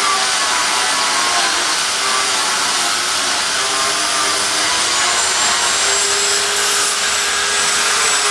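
Electric grinding machine running steadily under load, a hum with a grinding hiss over it; the hum's pitch wavers and settles about five seconds in.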